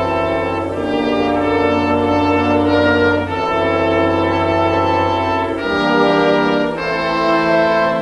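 Background orchestral score of held brass chords, changing to a new chord every one to two seconds.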